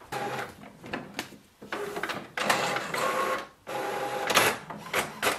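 HP OfficeJet Pro 8139e inkjet printer printing a page: stretches of motor whirring broken by short pauses, turning into a quick regular pulsing of about three a second near the end.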